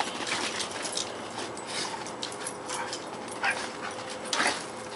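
German shorthaired pointers scuffling in play over a toy, with two short dog vocal sounds near the end, about a second apart.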